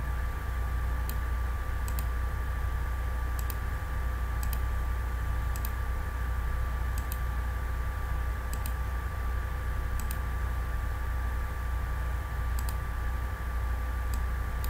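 Computer mouse clicks, about one a second and some in quick pairs, over a steady low electrical hum with a faint thin whine.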